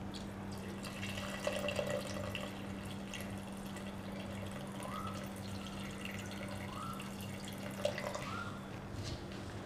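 Water poured from a plastic jug into an aluminium pressure cooker full of raw chicken and soaked chana dal, splashing and trickling steadily. A steady low hum runs underneath, and a faint short rising chirp repeats several times in the second half.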